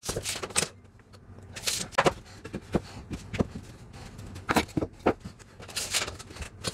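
Scattered light knocks, clicks and scrapes of hands-on work on engineered hickory stair treads: shifting and stepping on the wood, handling a pencil, and a tape measure being pulled out and laid across a tread.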